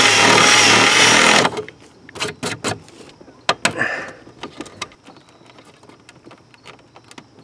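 Electric drill with a 23/64-inch bit drilling a hole through the lower dash panel, stopping suddenly about a second and a half in. A few light clicks and knocks follow as the push-button switch is handled and fitted into the fresh hole.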